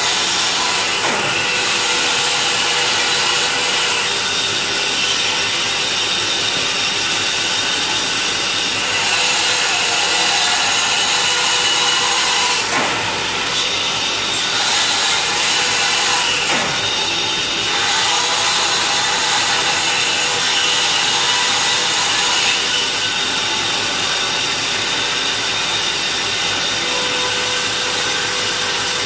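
Band saw running and cutting a thick block of wood along a curve, steady throughout, with a few brief falling sweeps in pitch.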